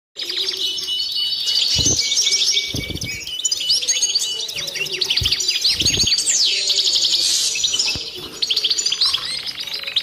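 A small songbird singing a fast, unbroken twittering song of trills and rising and falling notes, with a few low thuds underneath.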